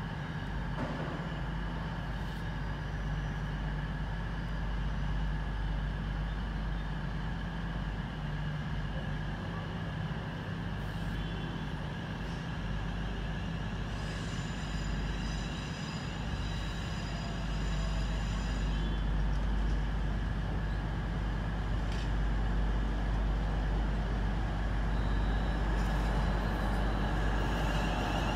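Electric passenger trains running through a station: a steady low rumble and hum, with high whining tones partway through as a train comes in. The sound grows louder over the last ten seconds.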